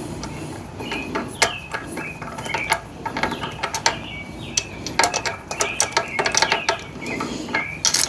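Irregular metallic clicks and clinks of hand tools and bolt hardware being worked on a motorcycle, with short bird chirps in the background.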